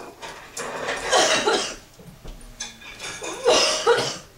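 Two loud bursts of a person's voice, each about a second long and about two seconds apart.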